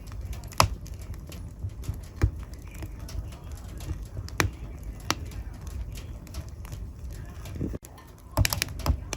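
Wood fire in a fireplace crackling: a steady low rumble of burning with sharp pops every second or two, and a quick cluster of pops near the end.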